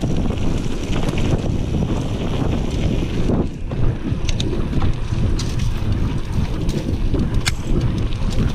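Wind buffeting the camera microphone of a mountain bike descending fast on dirt singletrack, over a steady rumble of tyres on the trail. Scattered sharp clicks and rattles from the bike come through, the clearest a few seconds in and near the end.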